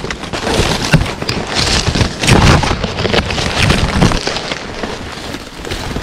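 Close, loud rustling and crunching of brush and leaf litter in irregular bursts, from someone moving through mountain undergrowth.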